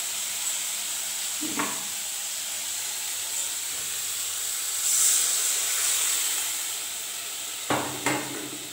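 Spiced tomato masala sizzling in a hot aluminium kadai, with a louder hissing surge about five seconds in as water is added to the frying masala. A few short knocks of the spatula against the pan.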